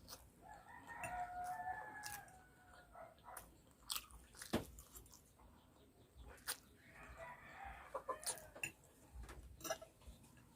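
Eating sounds: a fork clicking on a plate and chewing of noodles, in sharp separate clicks. Two drawn-out bird calls are heard in the background, one near the start and one about seven seconds in.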